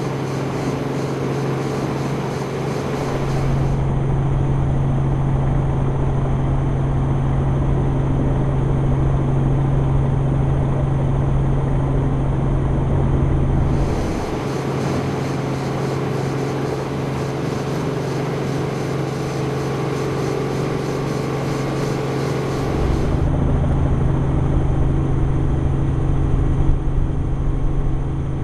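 A light helicopter's engine and rotor drone steadily as heard inside the cabin, with a constant low hum. The drone shifts abruptly to a slightly different sound about 4, 14 and 23 seconds in.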